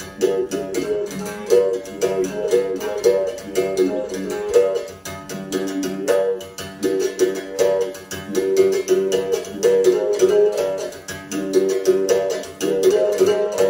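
Instrumental music with plucked strings, a melody over a quick, even pulse of strokes.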